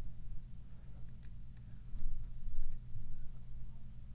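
Light, irregular metallic clicks and ticks of a lock pick working the pin stack of a Wilka pin-tumbler lock held under tension, over a steady low hum.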